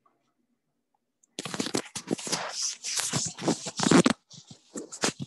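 Near silence for about a second, then a run of irregular scraping and rustling as the handheld device is picked up and moved, hands rubbing against its microphone.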